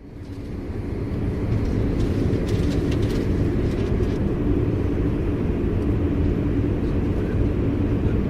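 Eurostar high-speed train heard from inside the carriage, running through the Channel Tunnel: a steady low rumble with a constant hum that fades in over the first second or so, with a few light rattles about three seconds in.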